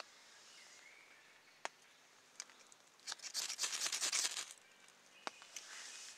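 Ferro rod scraped hard in a quick run of strokes for about a second and a half, starting about three seconds in, showering sparks onto birch bark tinder to light a fire. A few single sharp clicks before and after.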